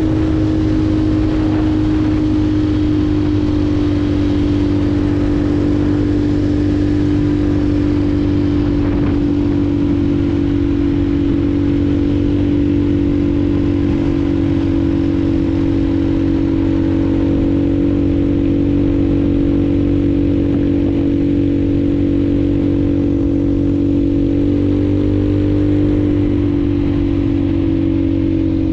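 Small-displacement motorcycle engine running through a new aftermarket exhaust, holding a steady cruising speed with an even drone.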